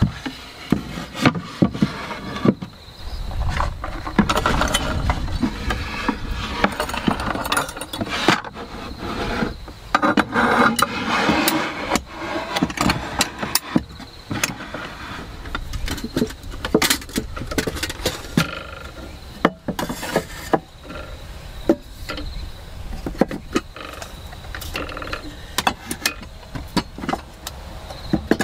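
Wooden plates, frying pans and metal cups knocking and clattering against one another and the wooden shelving as they are stacked and slid onto shelves by hand, with many short sharp knocks.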